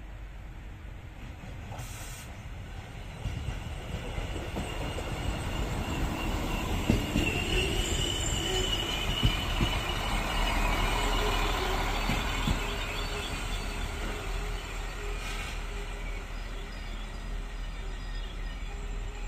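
SA134 diesel multiple unit arriving and braking to a stop: the engine and running noise swell as it passes close, with a few sharp clacks of wheels over rail joints and a high wheel-and-brake squeal as it slows.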